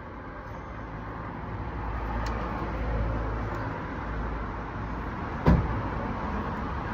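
A low rumble and noise that swells around the middle and then eases, like a road vehicle passing. One sharp knock comes about five and a half seconds in.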